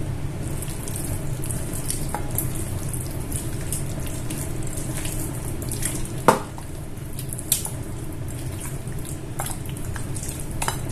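Kitchen handling sounds as marinade ingredients are added and mixed: light clicks and taps of utensils and containers, with a sharp knock about six seconds in and a smaller one about a second later, over a steady low hum.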